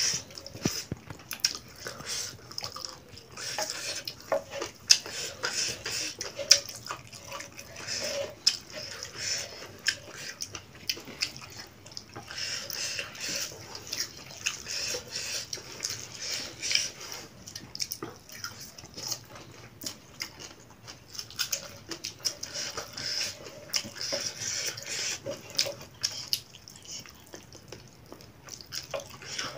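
Close-up eating sounds: scattered clicks and clinks of fingers and cutlery against a large shared plate of chicken, with wet chewing and mouth smacking.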